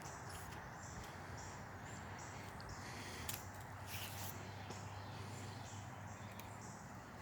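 Quiet woodland ambience: a high-pitched call repeats over and over above a steady hiss, with two or three faint ticks near the middle.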